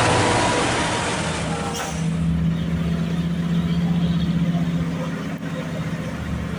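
Loud vehicle noise with a hiss that stops abruptly about two seconds in. After that, a heavy truck engine runs steadily at low speed with a low, pulsing hum.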